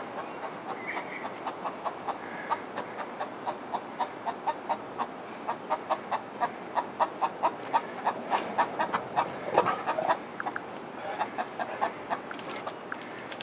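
Young backyard hens clucking softly in their run: a steady string of short, low clucks a few times a second, a little louder and busier in the middle.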